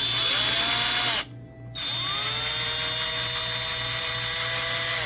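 DEKOPRO 12V cordless drill motor run twice: a short burst of about a second, then, after a brief pause, a longer run of about three seconds. Each run has a whine that rises as the motor spins up, holds steady, and drops as it winds down.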